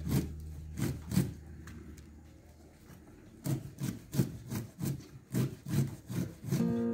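Mounted hinged-blade chopper shredding leafy greens on a wooden board: quick, rhythmic cutting strokes, about three a second. Background music fades out about a second in and comes back near the end.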